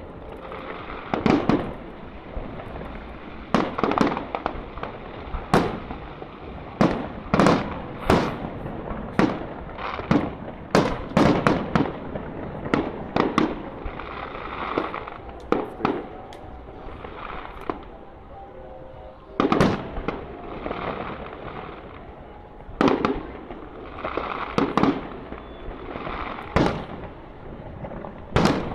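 Fireworks display: a long run of sharp shell bursts, often several in quick succession, with crackling sparkle between the bangs and a short lull about two-thirds of the way through.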